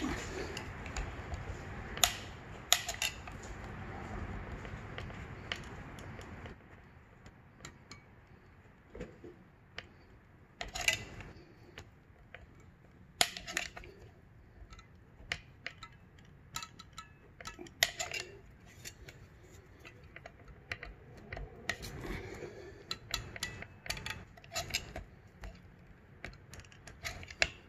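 Scattered light metallic clinks and clicks of hand tools and parts being handled. A steady background noise runs underneath and cuts off about six and a half seconds in.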